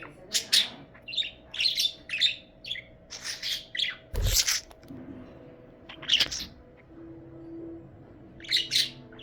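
Budgerigar chirping and chattering in quick clusters of short, high calls, thinning out in the second half. A loud thump about four seconds in.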